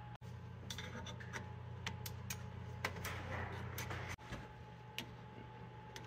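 Light, irregular metallic clicks and ticks of a ratcheting wrench and hand tools working on front brake caliper bolts, over a steady low hum.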